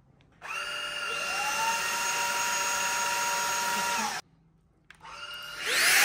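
Teqqo Powerstick Plus cordless stick vacuum switched on about half a second in, its motor whine rising as it spins up and then running steadily. It is switched off abruptly about four seconds in, then switched on again and runs louder near the end.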